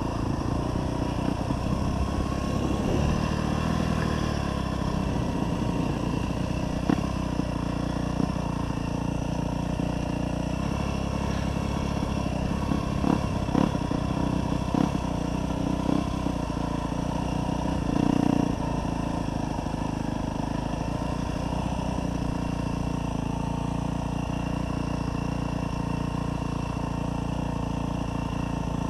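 2024 Yamaha YZ250F dirt bike's single-cylinder four-stroke engine running at a steady, even pace as the bike is ridden along. A few short clicks and rattles come midway, and there is a brief louder rise in the engine about two-thirds of the way through.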